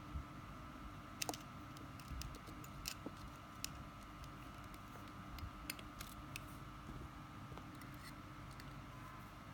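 Irregular small metallic clicks and taps of needle-nose and round-nose pliers gripping and bending a stainless steel wire, about a dozen, the sharpest about a second in. A faint steady hum lies underneath.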